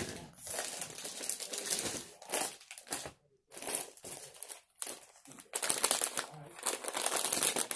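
Snack packets crinkling and rustling as someone rummages through a box of wrapped snacks, in irregular bursts with a short pause about three seconds in, loudest near the end.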